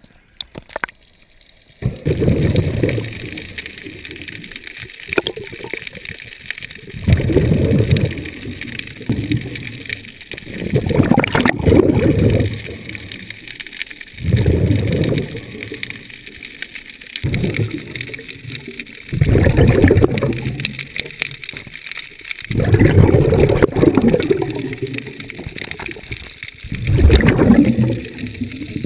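Underwater recording of a diver's breathing: low, gurgling bursts of exhaled bubbles every three to four seconds, starting about two seconds in, over a faint steady high whine.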